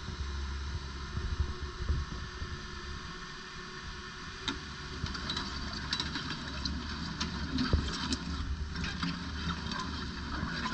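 Komatsu PC180LC-7 tracked excavator running, its diesel engine giving a steady low rumble while the machine slews and works its boom and bucket, with a few knocks scattered through.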